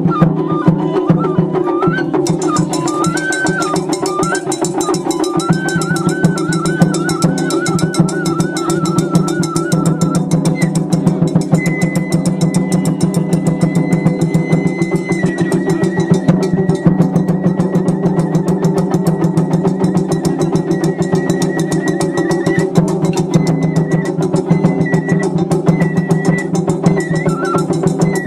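Festival music: fast, steady drumming under a high melody that moves in quick trills and steps at first, then holds long notes from about a third of the way in.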